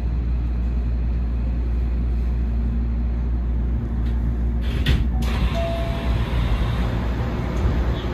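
Hankyu electric train running along the track, heard from inside the front car: a steady low rumble of wheels and running gear, with a brief sharp clatter about five seconds in.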